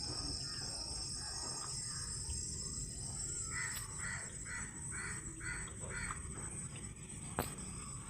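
A crow cawing a quick run of about six calls, over a steady high trilling of crickets or other insects, with one sharp click near the end.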